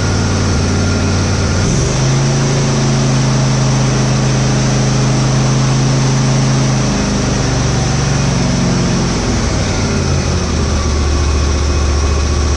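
Briggs & Stratton 24 hp lawn tractor engine running smoothly, like a kitten. Its speed steps up about two seconds in, then comes down in stages to a lower steady idle near the end, with no surging, after new O-rings were fitted on the carburetor jets.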